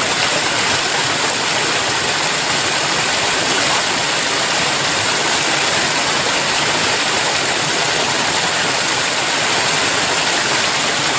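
A small creek spilling down a short rocky cascade, its water making a steady, even rush.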